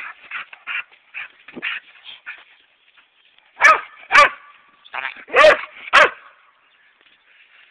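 Dog barking: five loud, sharp barks about half a second apart, starting about halfway through, after a few faint short sounds.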